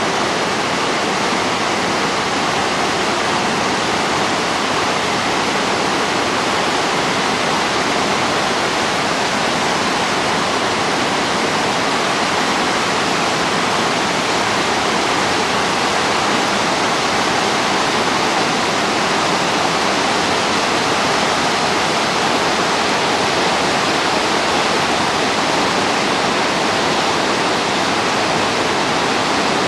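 Whitewater of a Colorado River rapid rushing, a loud, steady, unbroken noise.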